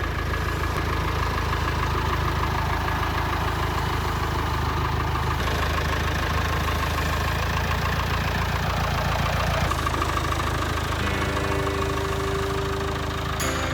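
Engine idling steadily. Its note shifts about ten seconds in, and a few steady tones join near the end.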